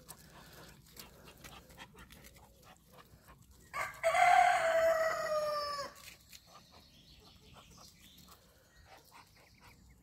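A rooster crows once, a single drawn-out call of about two seconds, about four seconds in, its pitch falling slowly toward the end.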